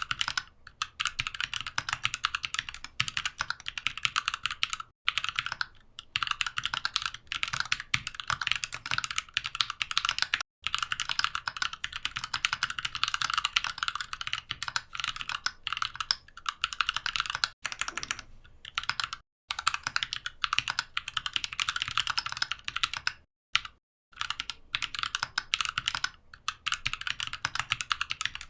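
Mechanical keyboard being typed on quickly: dense runs of key clicks, broken by several brief pauses.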